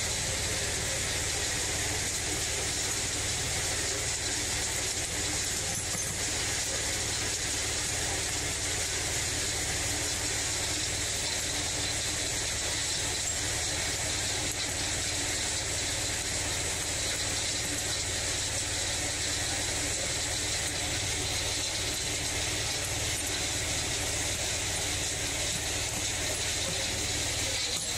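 24 by 16 HD hammer mill running steadily: a continuous, even mechanical noise with a faint steady high whine over it.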